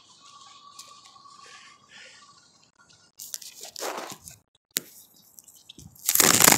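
Camera handling noise: the microphone rubbing and scraping as the camera is moved about and covered. A faint steady high tone runs through the first two seconds, then come a scraping rub about three seconds in and a louder one near the end.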